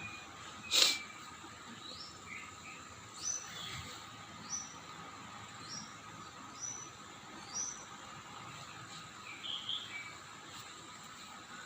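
Short high-pitched chirps repeated roughly once a second over a faint steady high drone, with one sharp click about a second in.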